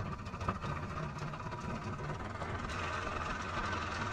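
A motor running steadily at low speed: a low, even hum with a faint hiss over it.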